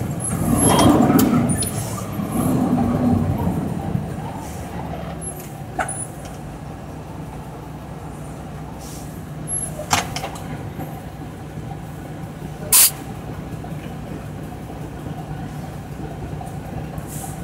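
Mack work truck's diesel engine, heard from inside the cab, runs loudly for the first few seconds, then drops to a steady low idle as the truck stops. About three-quarters of the way through comes a brief, sharp burst of noise.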